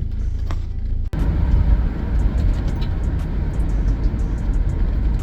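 Steady low road rumble inside a moving vehicle's cabin, briefly broken by an edit cut about a second in.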